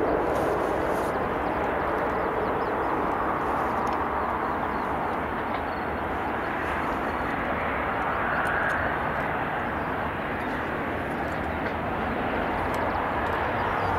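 Boeing 777-300ER's twin GE90-115B turbofans running at taxi power as the jet taxis past: a steady, even rush of engine noise.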